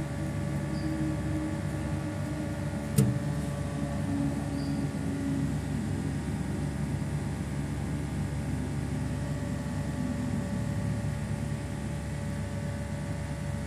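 Steady hum of a running 35 kW electric pump motor and its star-delta starter panel, with several steady tones over a low rumble. A single sharp click comes about three seconds in.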